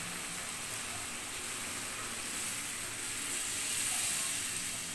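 Pumpkin and shrimp curry sizzling in a hot aluminium kadai as water is poured in for the gravy. A steady hiss grows somewhat louder in the second half.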